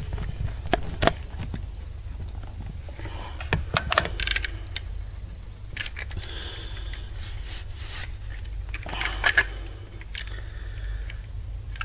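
Handling noise from a plastic telephone handset and its coiled cord: scattered light clicks and rattles in three small clusters, about a second in, around four seconds and near nine seconds, over a low steady rumble.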